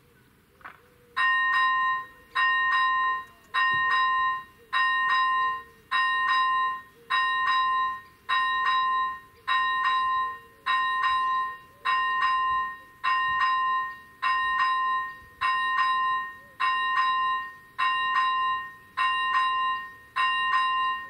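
Railway level crossing's electronic warning bell starting about a second in, then ringing steadily about once every 1.2 seconds, each chime fading before the next: the crossing has activated for an approaching train.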